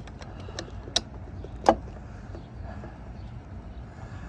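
A few sharp clicks and taps from handling a camper door lock and its parts, the loudest about two-thirds of the way through with a short ring, over a low rumble from a shirt-clipped microphone moving.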